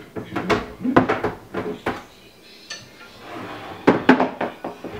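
Plastic and metal parts of a Cooldraft misting fan being handled and fitted together: a string of sharp knocks and clatters, with a scraping rub about three seconds in.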